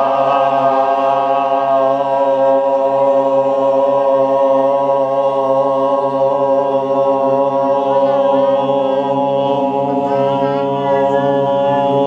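A group of voices chanting Om together in one long, steadily held note.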